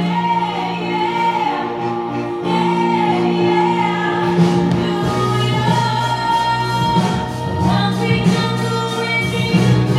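A young man singing into a handheld microphone over musical accompaniment, holding long notes.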